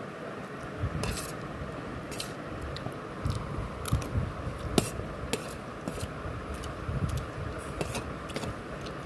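Metal spoon clinking and scraping against a plate while scooping up vermicelli, in irregular clicks a few times a second.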